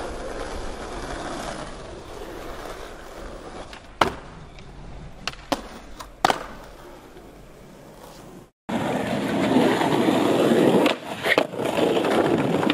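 Skateboard wheels rolling on concrete, broken by sharp clacks of the board popping and landing, the first about four seconds in. After a sudden break the rolling comes back louder, with more clacks near the end.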